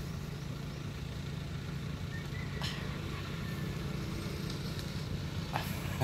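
Tracked rice carrier's engine idling steadily, a low even hum with no revving.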